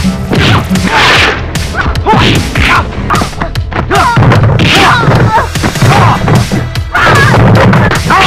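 Kung fu movie fight soundtrack: a quick series of dubbed punch and kick impacts and whooshes with short shouts from the fighters, over a music score.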